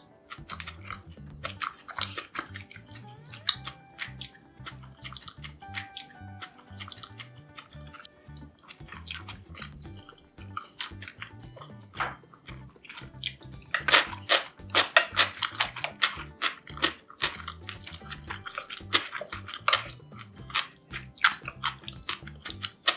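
Close-miked chewing and crunching of crisp battered fried vegetables (tempura), with a dense run of loud crunches in the middle. Soft background music plays underneath.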